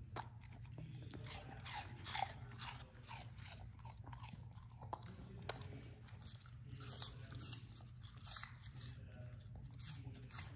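A dog chewing a piece of apple, a run of crisp crunches coming unevenly throughout, over a low steady hum.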